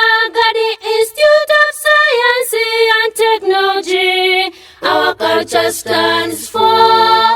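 Voices singing a school anthem in held, melodic notes.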